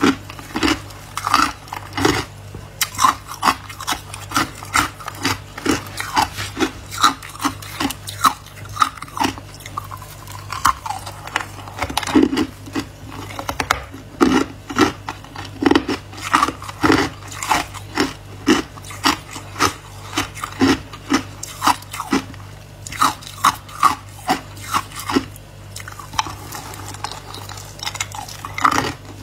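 Chunks of hard ice being bitten and chewed, a close, irregular stream of sharp crunches and cracks over a steady low hum. Near the end, a gloved hand reaches into a plastic box of ice chunks.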